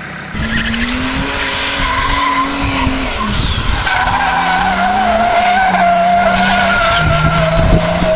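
Mercedes-Benz diesel saloon doing a smoky burnout: the engine is held at high revs, its note shifting up and down, while the rear tyres squeal steadily against the pavement. The sound starts a moment in.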